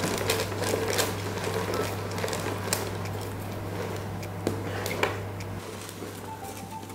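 Folded paper slips rustling and crinkling as hands stir and dig through them in a clear plastic draw box, with scattered light clicks and taps.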